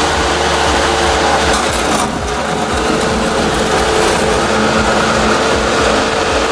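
Bobcat 773 skid steer loader's diesel engine running steadily under load, with a constant whine over the engine noise. The level drops briefly about two seconds in.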